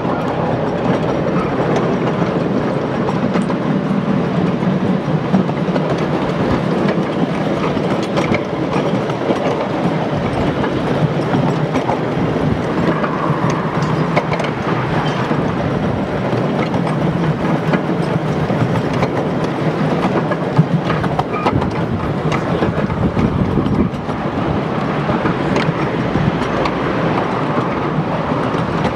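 Miniature railway train running along the track, with a continuous rumble and wheels clicking over rail joints.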